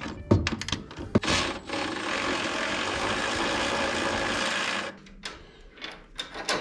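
A few metal clinks of tools on the car, then an electric ratchet runs steadily for about three seconds and stops suddenly, backing out a titanium bolt.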